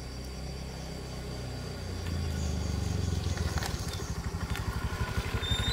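Small engine running, getting louder and more rapidly pulsing about two seconds in, with crickets chirping.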